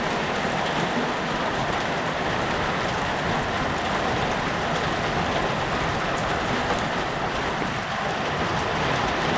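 Hailstones falling and striking surfaces: a dense, steady hiss with faint ticks of single stones.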